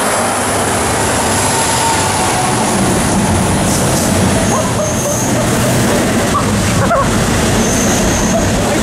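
A freight train rolling past close by: a steady, loud rumble of wheels on rail, with a few faint, brief wheel squeals.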